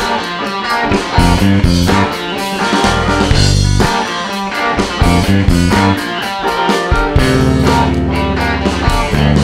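Live rock band playing an instrumental passage: electric guitar and bass over a steady drum-kit beat of about four hits a second, with no singing.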